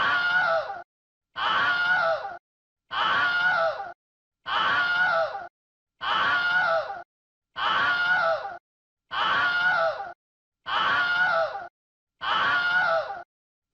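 A person's scream sound effect played on a loop: the same scream of just over a second, repeated nine times about every second and a half, with silence between.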